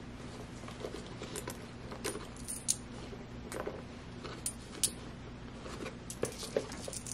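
Loose coins clinking as they are handled and put into a small pouch: scattered light metallic clicks, a few sharper ones, with soft rustling of the bag.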